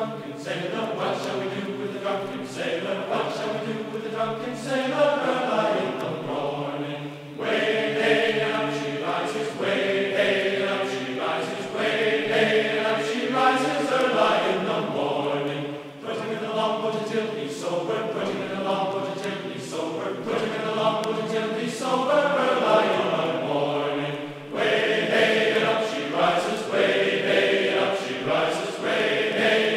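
Background music of chanted, choir-like vocals, sung in long held phrases that pause briefly about every eight seconds.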